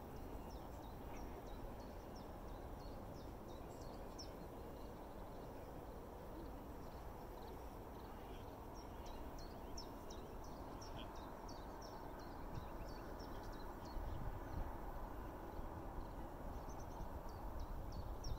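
Wind rumbling on the microphone, with small birds chirping and calling in short, high notes, more busily in the second half.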